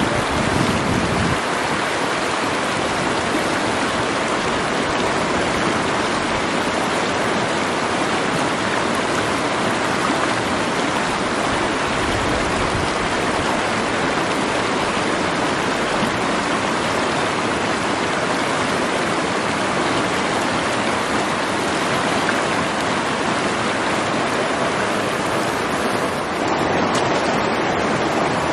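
Rushing water of a shallow, rocky stream running over riffles, a steady rush that gets a little louder near the end.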